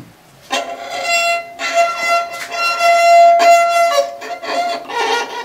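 Handmade rabeca, a Brazilian folk fiddle, bowed in several long strokes that hold mostly one note, starting about half a second in. The strings have not been tuned yet.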